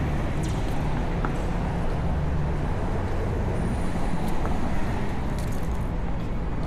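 Steady city street traffic: a low, continuous rumble of car engines and tyres at an intersection, with a few faint clicks.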